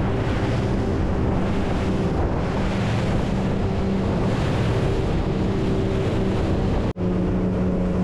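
Boat's outboard engines running steadily at cruising speed, a constant low hum, with wind buffeting the microphone and water rushing past the hull. The sound drops out for an instant about seven seconds in.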